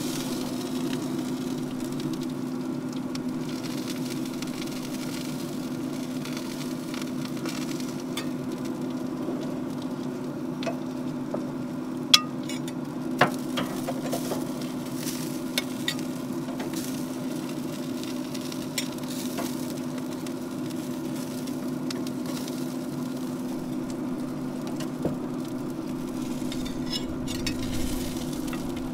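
Burgers sizzling on the grate of an open smoker over a steady hum, with a few sharp metal clinks as a fork lifts the patties from the grate, the loudest about halfway through.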